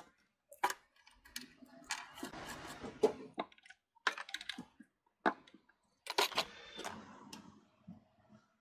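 Screwdriver and small steel fittings clinking and scraping on the oak tool box as the handle and brackets are taken off: a string of short clicks and rattles with brief silent gaps between them.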